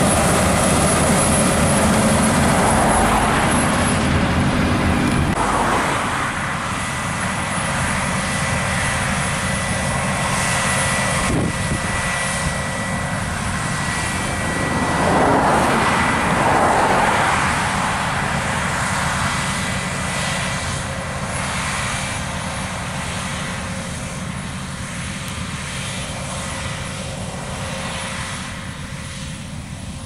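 Claas Lexion 7500 Terra-Trac combine harvester running under load while cutting barley: a steady engine and machinery drone, louder for the first few seconds and then a little fainter.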